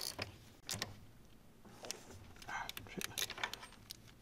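Scattered light metallic clicks and ticks of hand tools and small metal parts being handled on top of an engine during reassembly.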